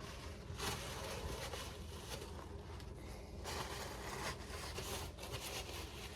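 Rubbing and scraping handling noises that come and go in uneven swells.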